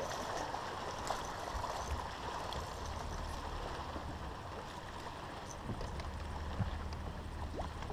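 Water lapping and gurgling against the hull of a bass boat, with a steady low rumble underneath.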